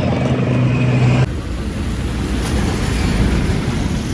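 Vehicle engine running with a steady hum, which cuts off abruptly about a second in to a steady low rumble of engine and road noise.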